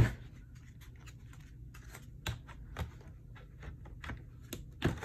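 Scattered sharp plastic clicks and knocks as a laptop's removable battery is handled and pushed into its bay, with the loudest clicks near the end.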